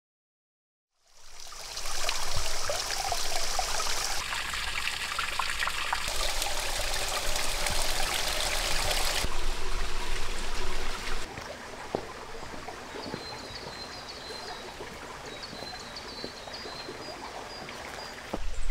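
Running water of a valley stream, heard in several short cuts after about a second of silence. After the last cut the water is quieter, with faint high chirps over it.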